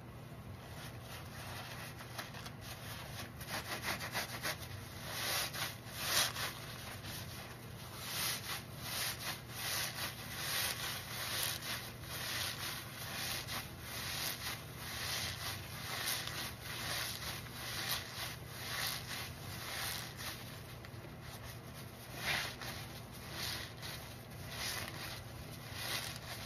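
Soapy sponges squeezed again and again in thick foam by gloved hands: a wet squelch and crackle of suds that swells with each squeeze, growing louder a few seconds in.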